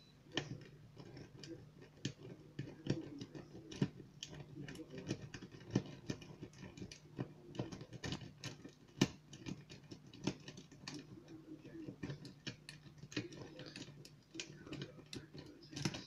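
A 23-gauge Peterson Bogota rake worked in and out of a pin-tumbler lock cylinder under light tension: rapid, irregular metallic clicking as the rake strikes the pins.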